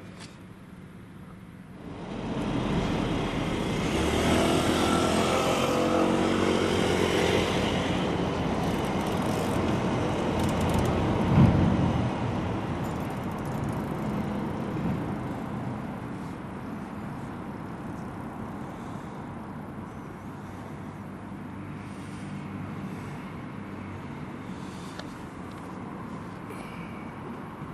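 Kanto Railway Joso Line diesel railcar passing. Its running noise comes up suddenly about two seconds in, stays loud for about ten seconds with a sharp peak near the middle, then fades slowly.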